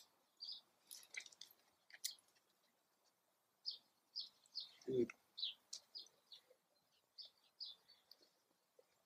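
Small birds chirping in short, scattered calls, with a few faint clicks early and a soft thump about five seconds in.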